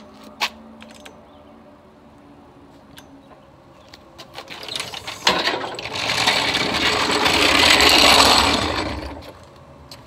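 Floor jack being lowered and then rolled out across a concrete driveway, its wheels and frame rattling; a few light clicks first, then the rolling rattle builds about halfway through and fades out near the end.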